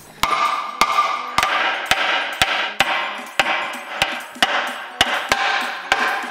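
Hammer blows on steel, striking the cross member of a Tatra truck's frame to knock it loose, in a steady series of about two sharp, ringing strikes a second.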